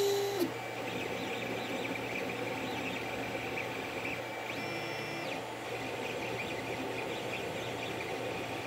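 Creality CR-10 3D printer running a print: a steady hum with stepper motors whirring under it. A louder pitched stepper move sounds at the very start, and a higher whine that rises, holds and falls comes about four and a half seconds in as the print head makes a quick move.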